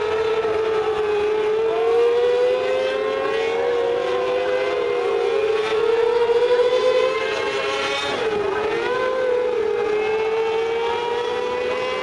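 Several mini sprint cars racing on a dirt oval, their engines running at high revs in a steady whine that rises and falls as they go around, with a brief dip about eight seconds in.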